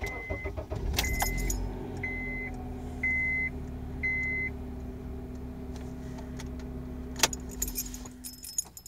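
2005 Honda Accord four-cylinder engine starting and idling with a steady whistle-like humming note, which the owner traces to the intake manifold and throttle body area and suspects is an intake manifold fault. A dashboard chime beeps about once a second, five times, in the first half. Near the end the engine is switched off and the note dies out a moment later.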